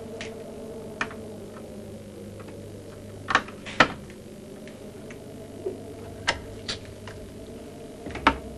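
A handful of sharp clicks and knocks, the loudest two close together a few seconds in: a key being worked in the lock of an old wooden cupboard and the cupboard door being handled.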